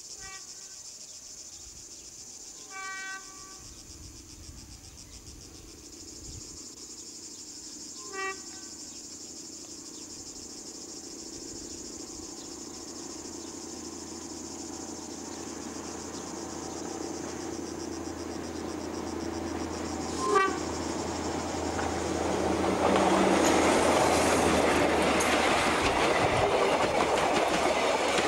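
Metre-gauge diesel railcar approaching on the line, sounding three short horn blasts about 3, 8 and 20 seconds in, the last the loudest. Its engine and wheel clatter grow steadily louder and are loud as it passes close by near the end.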